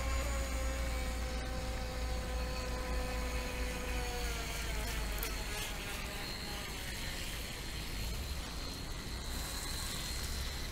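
Motors of radio-controlled model racing boats buzzing across the water, a thin whine that slowly drops in pitch over the first few seconds, with a higher whine coming in later. Wind rumbles on the microphone underneath.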